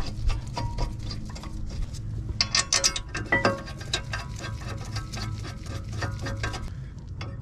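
Light metallic clicking and clinking as a BMW X3 F25 front brake caliper bracket and its bolts are handled and threaded in by hand. The clicks thicken in the middle into a brief ringing jingle of metal parts.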